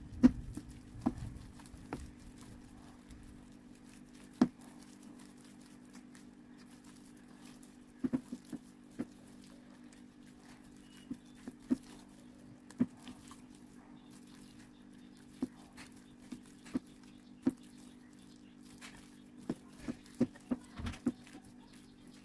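A hand kneading mashed potato and corn flour in a glass bowl: irregular light taps and clicks of fingers knocking against the glass. A steady low hum runs underneath.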